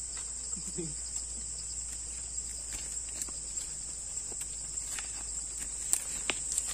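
Steady high-pitched drone of an insect chorus, with scattered light clicks and ticks over it.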